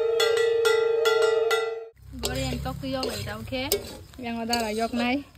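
Rhythmic music with a steady held tone and regular ringing metallic strikes, cut off about two seconds in. Then a spatula stirring food in a metal wok, with voices talking.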